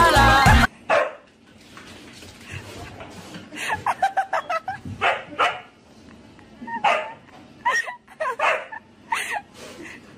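Dog barking and yipping in short, sharp yelps, some in quick clusters of two to four. Most of them come in the second half. Before them, music cuts off under a second in.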